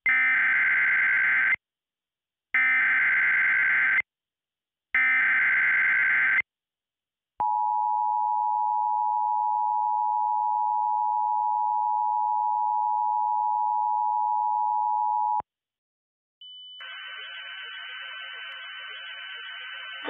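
Emergency Alert System SAME header: three short screeching digital data bursts, then the two-tone EAS attention signal held steady for about eight seconds. After a brief gap, a fainter steady hiss with a thin high tone comes in near the end.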